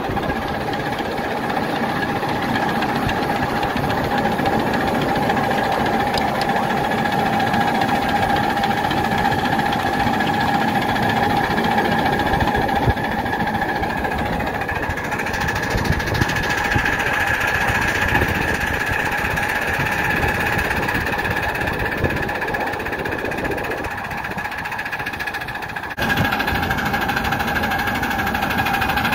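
Miniature steam locomotive built by Station Road Steam running along a small-gauge track: a steady mechanical clatter of its wheels and motion, with a constant ringing tone above it. The sound shifts abruptly near the end.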